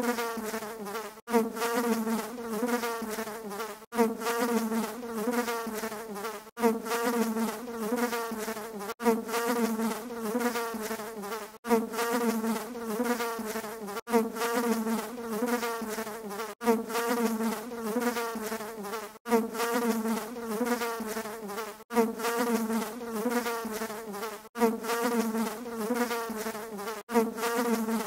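A steady insect-like buzzing drone from a looped added sound track. It restarts with a sharp break about every two and a half seconds, each repeat starting loudest and then easing off.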